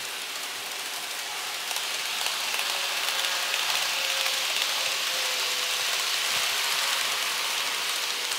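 Model trains running on plastic-based track: a steady rolling rattle from the wheels with a faint motor whine underneath. The noise swells for several seconds in the middle as two trains pass close by, then eases as they move away.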